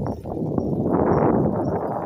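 Riding noise from a moving bicycle: a rush of wind and road rattle on the microphone, with scattered clicks, swelling to a peak about a second in and easing off.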